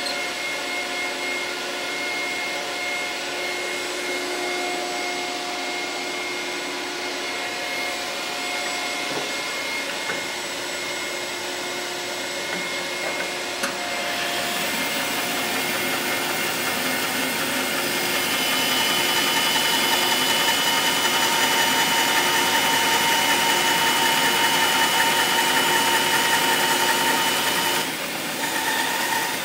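Bandsaw running with a steady whine. From about fourteen seconds in, the blade cuts along a wooden rail to form a tenon and the sound grows louder, then eases back near the end as the cut finishes.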